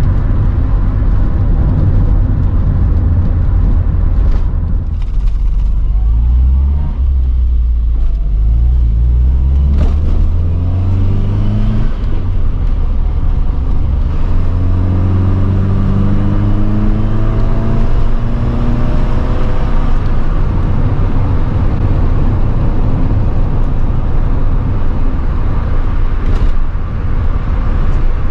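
MG Metro's A+ series four-cylinder engine, with its gearbox in the sump, pulling as the car accelerates: the engine pitch climbs, breaks at a gear change, climbs again, then settles into a steady drone at cruising speed.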